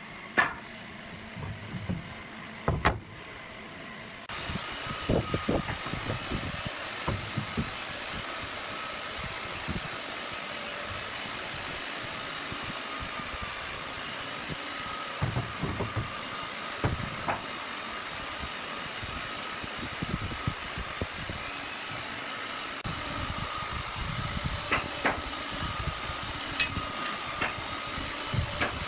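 A machine motor starts about four seconds in and then hums steadily with a high whine. Scattered knocks and taps sound over it.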